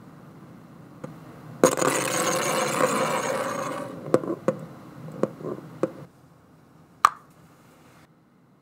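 A LEGO Technic spinning top, a spoked wheel rim, rattling and scraping loudly against its dish for about two seconds as it winds down, then clattering with half a dozen uneven clacks as it wobbles and settles. One sharp clink comes near the end.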